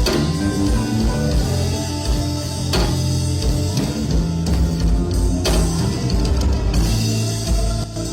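Music with guitar and drums: sustained guitar notes over a steady beat, with cymbal crashes every few seconds.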